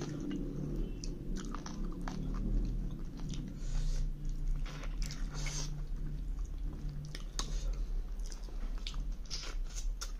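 Close-miked eating: a man chewing a mouthful of rice and chicken curry eaten by hand, with many short wet clicks and smacks of the mouth. A low steady hum lies underneath.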